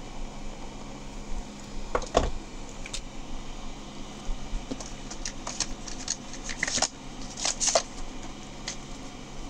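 Plastic gel pens and their caps being handled: scattered small clicks and rustles, a couple early and a busier run in the second half, over a low steady room hum.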